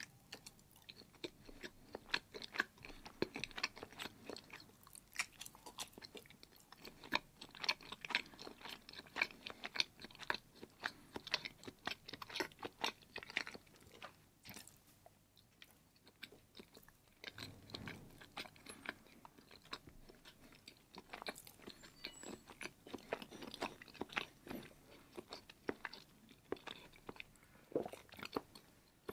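Chewing block cheese: a dense run of quick mouth clicks and smacks, easing off briefly about halfway through.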